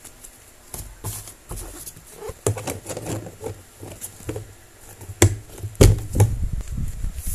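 Hands handling tape-covered paper packages against a clear plastic box: crinkling and rustling with light taps, and two sharper knocks about five and six seconds in.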